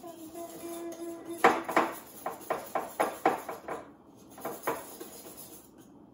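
Wire whisk beating pancake batter in a ceramic mixing bowl, a quick run of strokes clacking against the bowl at about four a second for a couple of seconds, then a couple more strokes before it stops.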